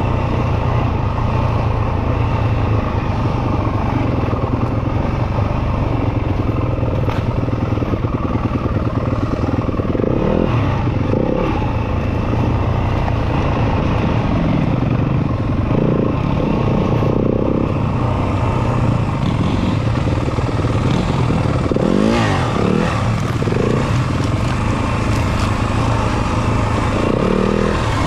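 Yamaha off-road motorcycle engine running steadily under way, with the throttle blipped several times so the engine note sweeps briefly up and down.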